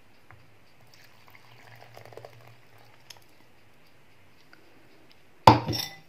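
Frothy yeast-and-sugar water poured from a cup into a bowl of flour, faint and soft. About five and a half seconds in comes a single sharp knock, the loudest sound.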